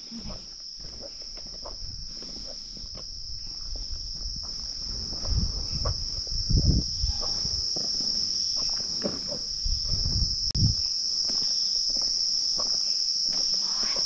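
Night insects keeping up a steady, high-pitched chorus, with scattered low rustles and thumps over it, most around the middle.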